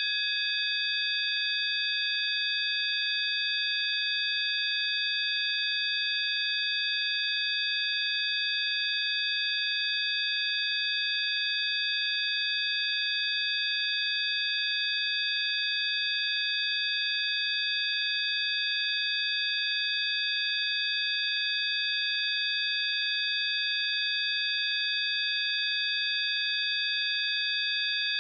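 Synthesized sine tones of a frequency-healing track: several steady high-pitched tones sounding together as one unchanging electronic drone.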